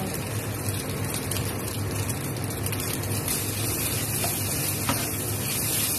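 Fried rice sizzling in a non-stick wok while it is stirred and tossed with a wooden spatula, with light scraping strokes over a steady low hum.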